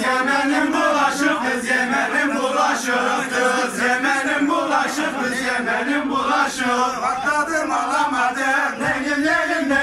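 Men singing a chant-like song together, loud and continuous.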